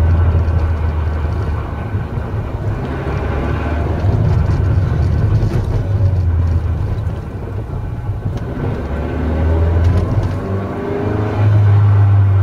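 Mazda Roadster NC's 2.0-litre four-cylinder and 6-speed manual gearbox heard from inside the car while driving, the engine note rising and falling with speed and picking up again near the end. The gearbox has developed an abnormal noise, which the owner suspects is a sign of impending transmission failure after running a worn-out aftermarket gear oil.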